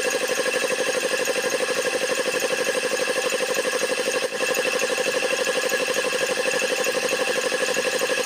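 Old belt-driven piston air compressor running steadily, pumping up its tank with a rapid, even beat from the pump strokes. The pressure switch has been turned up, so it keeps running as the tank climbs toward and past 80 PSI rather than cutting out.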